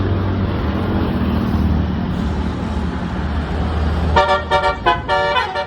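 A bus engine running with a low hum. About four seconds in, a Basuri telolet horn, the multi-tone musical bus horn, starts playing a quick run of short notes.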